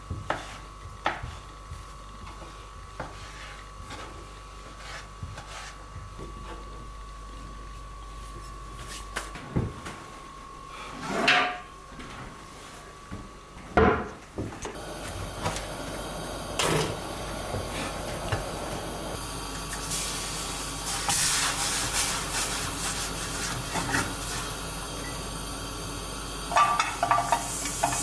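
Kitchen knife cutting mutton tail fat on a wooden cutting board with light, regular taps, then a few louder knocks of a wooden cupboard door being opened and shut. About halfway through a steady hiss sets in, as the fat pieces go into a frying pan on a gas stove and begin to sizzle, with a few clicks near the end.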